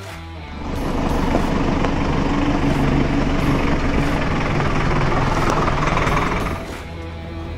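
Pickup truck driving close by on a dirt track, its engine running and tyres rolling over dirt and stones. It comes up about half a second in, holds steady, and fades after about six and a half seconds.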